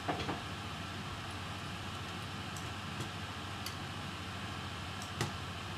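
A few light clicks and taps of small screws and hand tools on a laptop's plastic and metal parts during disassembly, the clearest right at the start and about five seconds in, over a steady room hiss.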